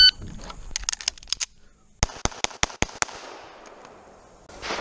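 Rapid semi-automatic pistol fire in two quick strings: about six shots starting about a second in, then about five more half a second later, at roughly five shots a second.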